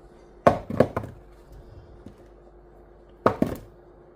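Potatoes knocking against each other and a hard surface as they are moved one at a time while being counted: two clusters of two or three hard knocks, about half a second in and again past three seconds, over a faint steady hum.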